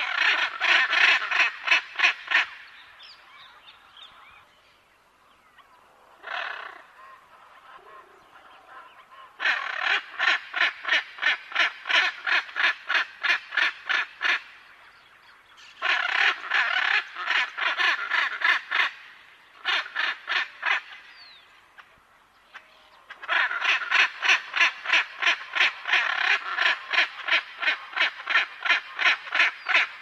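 Macaw giving runs of harsh, rapidly repeated calls, about four a second, in several bursts of a few seconds each with short pauses between.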